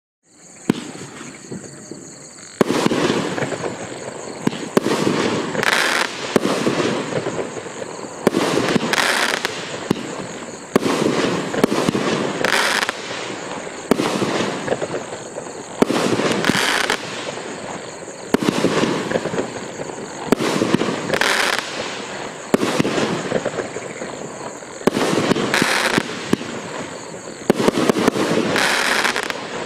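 A 16-shot, 500-gram consumer firework cake firing its shots in a string, about one every two seconds. Each shot is a sharp report followed by a burst and a crackling tail from the strobes and sparks. A steady high-pitched tone runs underneath throughout.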